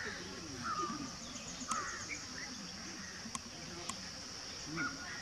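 Outdoor garden ambience: short bird chirps and calls over a steady high insect buzz, with faint voices talking in the background.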